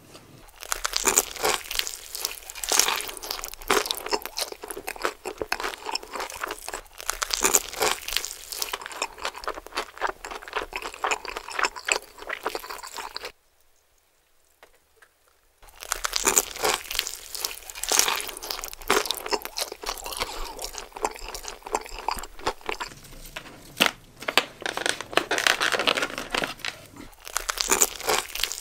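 Close-up crunching and chewing of crispy-coated Jollibee Chickenjoy fried chicken: dense, irregular crackles of the breading breaking between the teeth. About halfway through the sound drops to near silence for a couple of seconds, then the crunching resumes.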